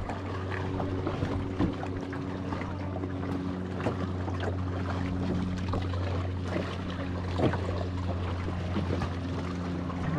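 Small boat motor on a jon boat running steadily at low speed, an even low hum with a few overtones. A few faint clicks and knocks come through it.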